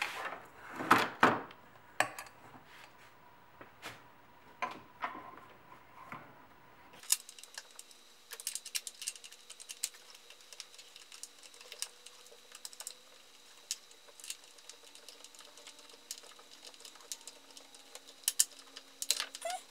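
Irregular light clicks and taps of a hand tool driving T30 Torx screws into the plastic DISA valve housing, with a few louder knocks in the first couple of seconds.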